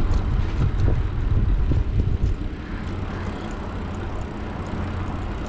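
Riding noise from a moving bicycle: a steady low rumble, heavier for the first two seconds.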